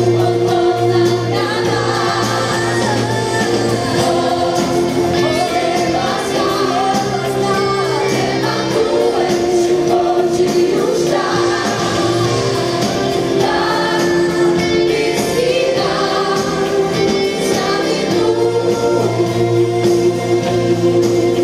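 Gospel choir singing live and amplified, with male and female lead vocals over a band with acoustic guitar; the low bass drops out for several seconds midway.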